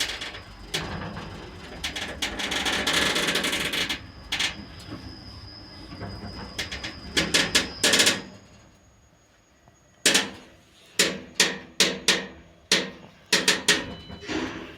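BelTransLift (BTL) passenger lift creaking loudly, which the title takes for a fault between floors, then a quick run of sharp knocks and clicks from the car and its doors.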